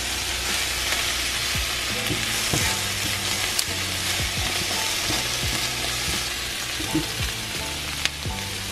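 Chicken and vegetable stir-fry sizzling steadily in a nonstick frying pan as it is stirred and turned with a silicone spatula, with an occasional light click of the spatula against the pan.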